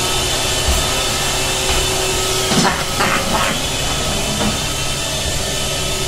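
iRobot Roomba robot vacuum running on a tile floor: a steady hum and hiss from its vacuum motor and brushes.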